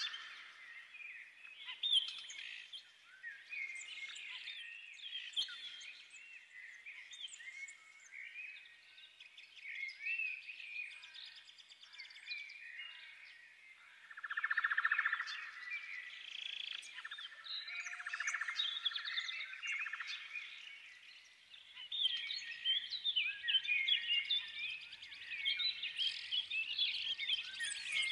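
Several small birds chirping and singing at once, in quick, overlapping chirps and short whistled glides.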